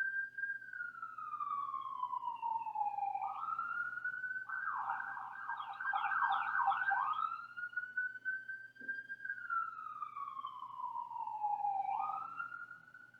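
Emergency vehicle siren sounding: a wail that slides slowly down in pitch and jumps back up, switching to a fast warbling yelp for a couple of seconds in the middle before returning to the slow wail.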